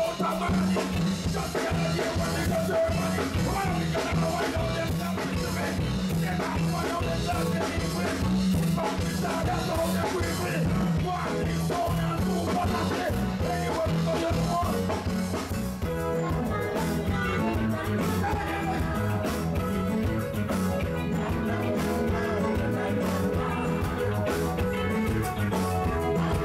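Reggae music with a steady, repeating bass line; the arrangement changes about two-thirds of the way through, becoming thinner in the highs with more sustained notes.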